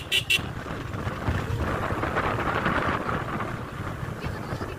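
Wind buffeting the microphone over the low rumble of a motorcycle on the move, with the last short horn toots right at the start.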